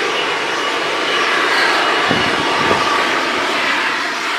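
Loud, steady hiss of cryogenic venting from the Starship launch pad and tower vents, heard during pre-chill of the propellant lines.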